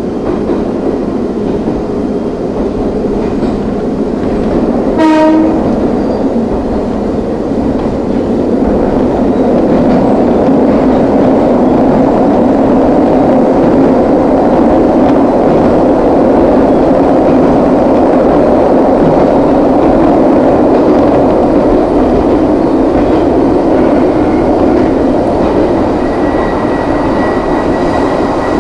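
Nagano Electric Railway 3500 series electric train running, heard from inside the car, with a short horn blast about five seconds in. The running noise grows louder from about nine seconds in.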